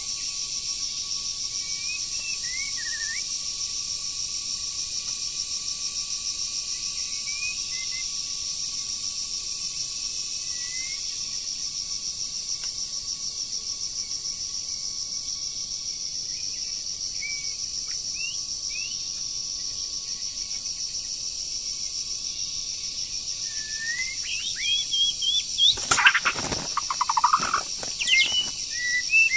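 Steady, rapidly pulsing high insect chorus, with scattered short bird chirps throughout. Near the end, louder bird calls come in along with a few sharp knocks or rustles.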